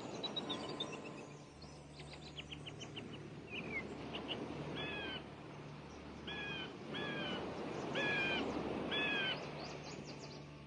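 Seagulls crying: a run of quick falling chirps, then about six harsh gull calls, over a steady low hum and wash.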